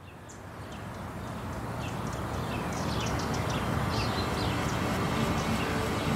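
Outdoor ambience fading in gradually: many small birds chirping in short, quick calls over a steady background hiss.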